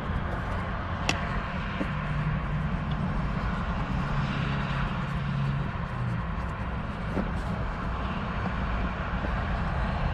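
Steady low rumble of a vehicle, with a couple of light clicks about one and two seconds in.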